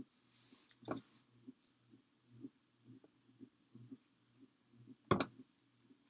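Quiet handling noise at a craft table: a soft click about a second in, then about five seconds in a louder knock as a plastic glue bottle is set down on the table. A faint low pulsing repeats about twice a second underneath.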